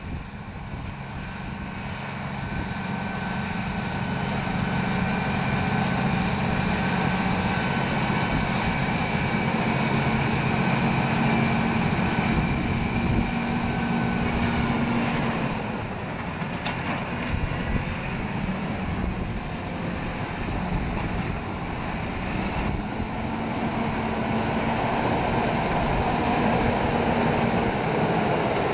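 John Deere 7250R tractor's six-cylinder diesel engine running steadily under load while pulling a KUHN mounted plough through the soil, with wind on the microphone. The engine note fades for several seconds just past the middle, then comes back.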